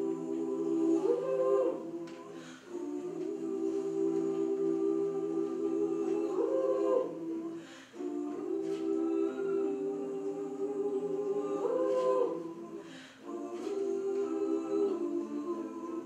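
A cappella vocal group singing wordless, humming-style chords. The held chords swell and fall back in phrases of about five seconds.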